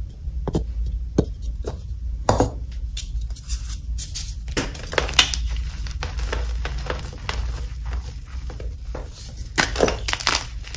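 Air-dried, dip-dyed Magking gym chalk blocks crunching and crumbling as a hand squeezes and breaks them: a run of sharp crackles and snaps, crunchy yet soft, with louder bursts of crunching about two and a half seconds in, around five seconds, and near the end.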